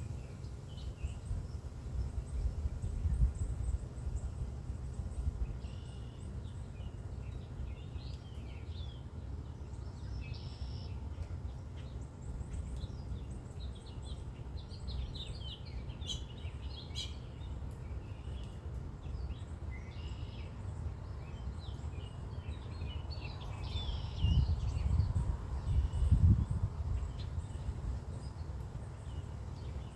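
Songbirds chirping and calling on and off over a steady low rumble, which swells briefly twice: a few seconds in and again near the end.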